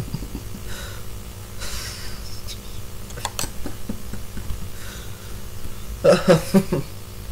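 A man laughing in a few short breathy pulses about six seconds in, over a low steady hum, with a few faint clicks earlier.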